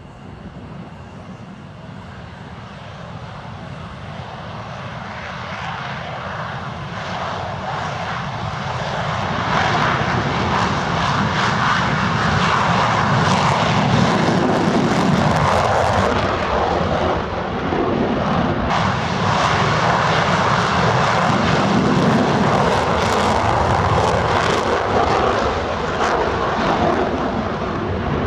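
Fighter jet's engines, growing louder over the first ten seconds or so, then holding loud and steady.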